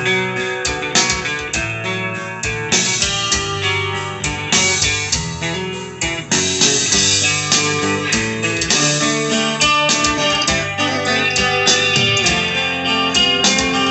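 Kenbrown S-33A guitar played in a demo: a steady run of picked single notes and chords.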